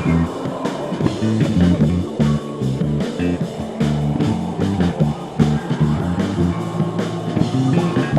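Experimental electronic music: a distorted bass line over a drum machine beat, with a delay-pedal tone gliding in pitch a few seconds in.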